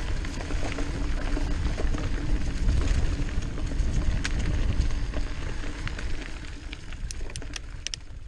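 Wind buffeting a camera microphone on a moving mountain bike, mixed with trail and tyre rattle. The rumble eases off, and a few sharp clicks come near the end.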